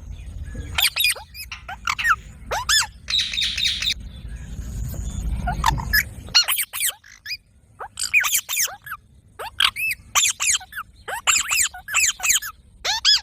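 A parrot giving repeated short, harsh squawks in quick clusters, most calls dropping in pitch. A low rumble runs under the first half.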